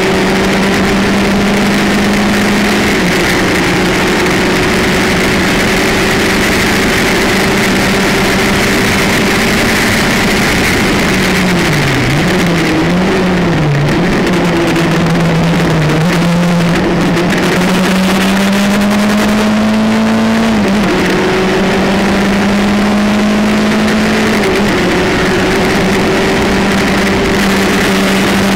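Onboard sound of a Formula Campus single-seater race car's engine at speed: held at high revs, then falling and wavering as the car slows for a corner about halfway. It climbs again through the gears, with two sudden drops in pitch at upshifts, over a steady rush of wind.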